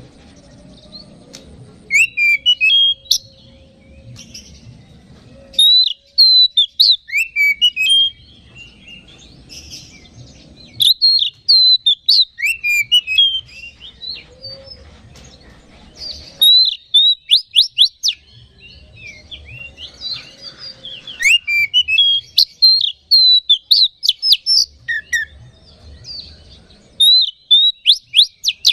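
Oriental magpie-robin (kacer) singing in loud bouts of quick, varied whistles and sharp chattering notes, each bout a few seconds long with short pauses between them.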